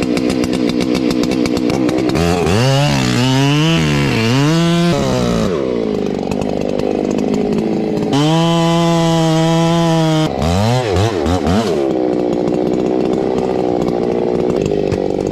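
Two-stroke chainsaw with a 42-inch bar running: blipped up and down several times, held at steady full throttle for about two seconds, dropped sharply, revved a few more times, then settles back to a steady lower run.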